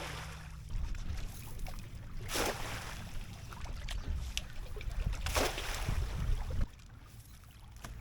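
Water splashing in short bursts about three seconds apart, with wind buffeting the microphone until it eases near the end.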